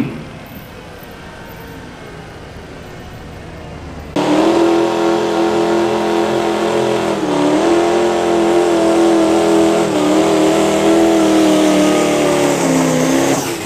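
Diesel pulling truck's engine running flat out under load as it pulls the sled, a loud steady high-revving drone whose pitch sags slightly a couple of times. It cuts in suddenly about four seconds in, after a quieter stretch of background noise.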